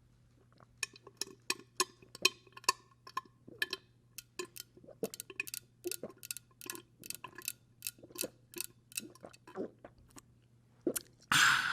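A run of small, sharp, irregular clicks and ticks, a few a second. Near the end a woman's loud burp begins.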